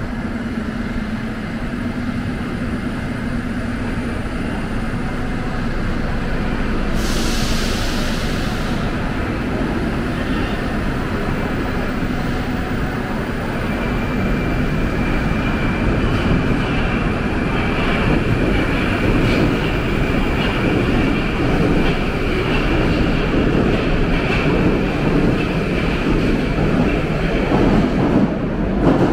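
Moscow Metro trains at an underground station platform: a steady train rumble, a short hiss of air about seven seconds in, and a high steady whine joining about halfway, the noise growing louder near the end as a train pulls in.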